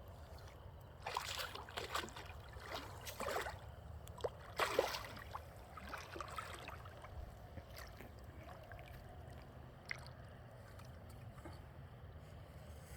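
Water sloshing and splashing over a steady low rumble, with several short, louder splashes in the first five seconds and quieter lapping after.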